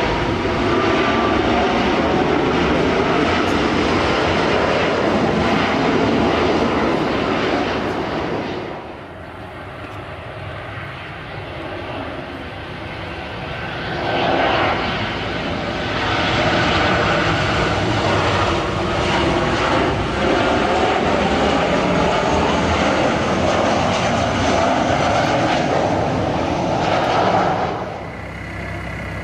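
Jet airliners passing low overhead on landing approach, first a Boeing 787 Dreamliner and then a Boeing 737-800: a loud engine roar with a gliding whine. The noise drops away about nine seconds in, swells again about halfway through, and falls off near the end.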